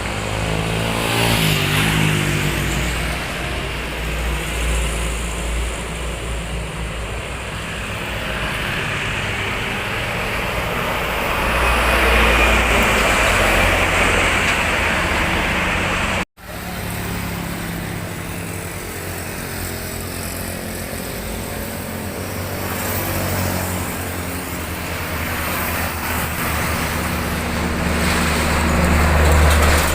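Road traffic: motorcycles and cars passing steadily, with a few louder vehicles going by. The sound cuts out abruptly for a split second about halfway through.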